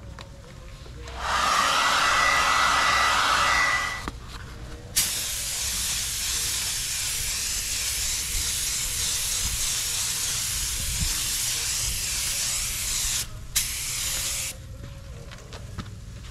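Compressed-air paint spray gun hissing in passes while spraying base coat: a loud burst of about three seconds starting a second in, then a long steady pass of about eight seconds, and a short one near the end.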